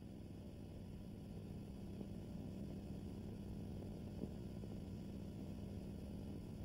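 Steady low hum and hiss of an old film soundtrack, slowly growing a little louder, with one faint click about four seconds in.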